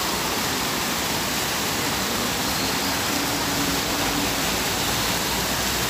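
Several vertical fountain jets splashing steadily into a shallow pool.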